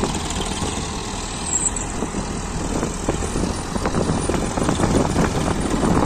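Swaraj farm tractors' diesel engines running at idle side by side. From about halfway on, a loader bucket tips soil into the trolley, adding a rush of pouring earth.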